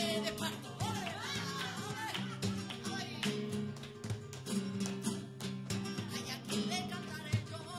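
Live flamenco music: guitar played with many sharp strummed and plucked attacks, and a singer's wavering, ornamented vocal line over it for the first couple of seconds and again near the end.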